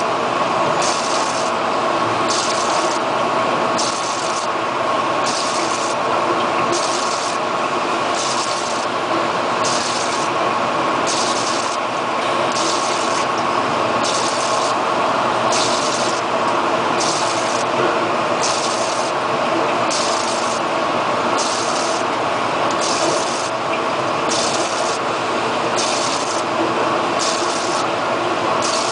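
Electric discharge machine running: a steady mechanical hum with constant tones, and a high hiss that switches on and off regularly, about every second and a half.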